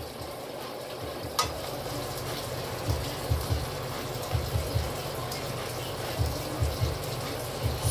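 Stir-fry vegetables sizzling in a hot wok while a spatula stirs them, a steady hiss with irregular soft low knocks from the stirring.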